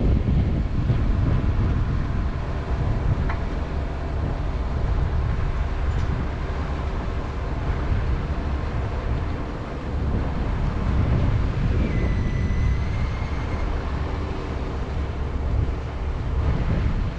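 Wind buffeting the microphone: a loud, gusty low rumble, with a faint steady hum underneath and a brief thin whistle about twelve seconds in.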